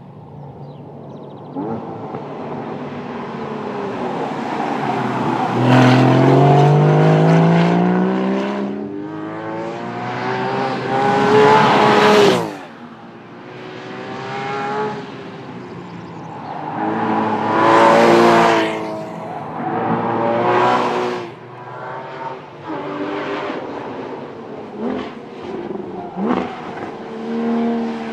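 Porsche Cayman GTS flat-six engine at full throttle: its pitch climbs steeply through the revs several times, drops sharply when the driver lifts off about twelve seconds in, and rises and falls again through the corners, with a few short crackles near the end.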